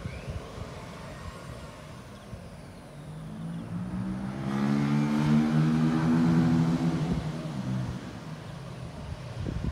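Engine noise swelling to a peak and fading away, with a low hum under a rushing noise.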